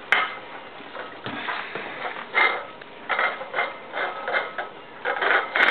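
Cairn terrier licking a plate of pasta sauce clean on a tile floor: wet licks and the plate scraping and knocking on the tiles, in short irregular bursts.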